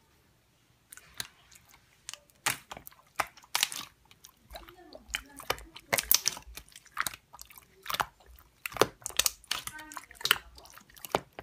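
Slime being squeezed and worked by hand, giving irregular sticky clicks and crackling pops, a few a second.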